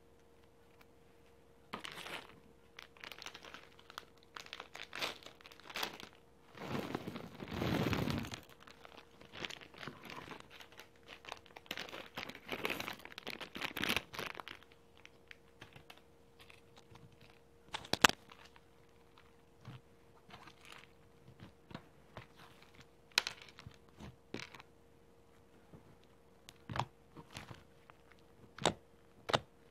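Hands working fluffy slime and a plastic packet of alphabet beads. The first half is crinkling and rustling from the plastic packet as the beads are poured out. Later come scattered sharp clicks and small pops as the slime is folded and pressed.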